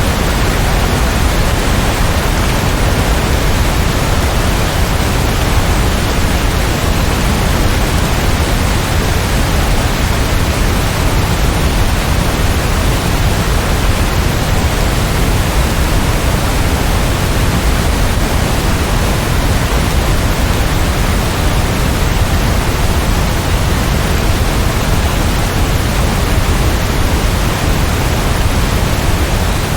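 Steady heavy rain, a dense, even hiss with no single drops or thunder standing out.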